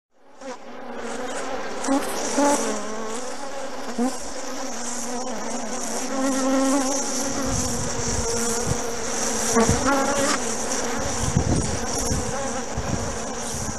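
Bees buzzing, a droning hum that wavers in pitch, over a steady high-pitched hiss; it fades in at the start, and low rumbles join about halfway through.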